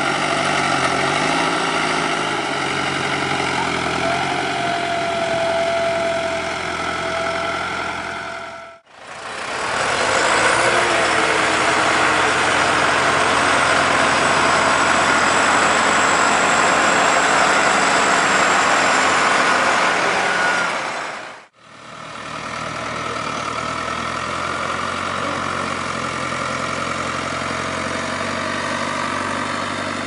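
Diesel tractor engines running in three clips joined by sharp cuts. First, a front-loader tractor pushes a pile of soil, with a steady high whine for a few seconds. Then a louder, rougher stretch. Last, an engine running steadily.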